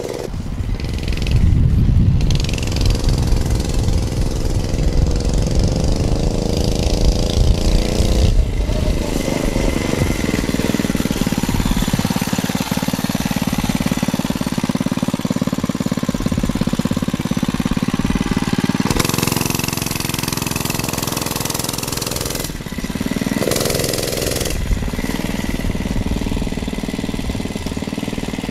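Small gas engine of a mini bike running under way, its pitch rising and falling as the throttle is worked. The sound changes abruptly several times.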